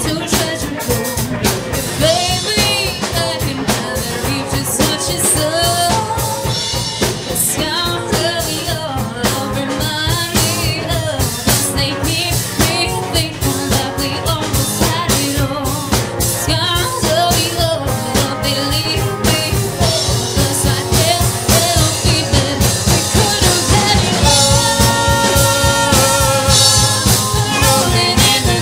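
Live band music: a singer over electric accompaniment, with a drum kit keeping a steady beat. The playing grows fuller and louder near the end.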